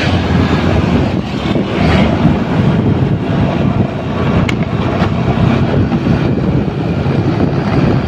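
Heavy wind buffeting on the microphone over the steady engine and road rumble of a moving vehicle, with one short tick about four and a half seconds in.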